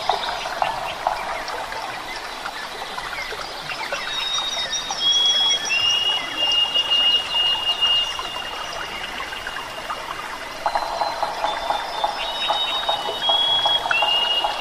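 Tropical forest ambience. High, steady insect tones are each held for a few seconds and shift in pitch. A fast pulsing buzz comes at the start and again about three-quarters of the way through.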